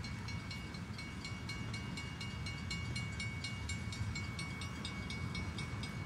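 Freight train of tank cars rolling past: a steady low rumble with a rapid, even ticking, about four a second, and a thin steady high whine.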